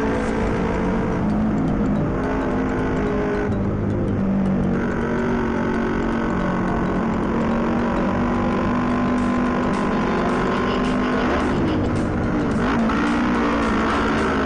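Motorcycle engine running steadily on the road, over a low rushing noise. Its pitch wavers up and down near the end.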